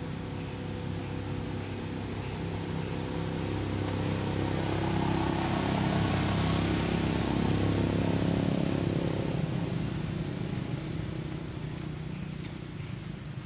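A motor vehicle's engine running steadily, growing louder to a peak about halfway through and then fading away.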